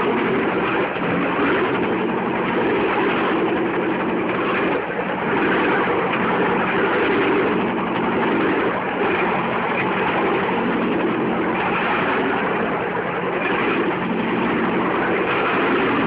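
Bamboo train (norry) running along the rails: its small engine runs steadily under the noise of the platform's wheels on the track.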